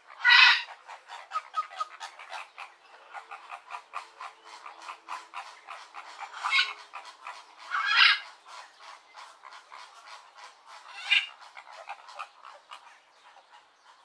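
A flock of flamingos calling: a dense stream of short, rapid calls, with a few louder calls standing out about half a second in, around six and a half and eight seconds, and near eleven seconds. The calls thin out toward the end.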